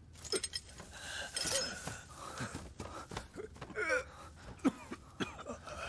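An injured, weakened man gasping, coughing and groaning in pain: several short breathy sounds, with brief moans that rise and fall in pitch.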